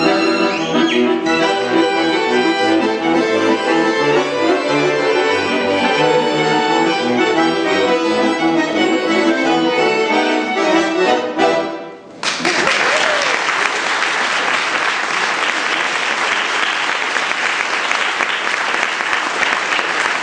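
A Romani-style tune played on violin and accordion over a steady bass pulse. About twelve seconds in the music stops and an audience applauds.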